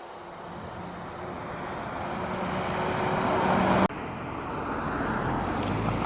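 Fire-station warning siren sounding during a siren test, a rough rushing howl that swells steadily louder, broken off abruptly for an instant about two-thirds of the way through.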